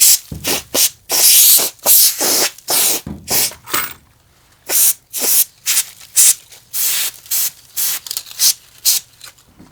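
Dirt being cleared out of a greenhouse frame corner: a quick, irregular run of short hissing, scraping strokes, a few of them longer, about a second in and again near the middle.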